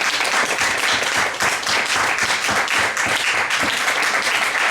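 Audience applauding and clapping, a steady crowd of many overlapping claps.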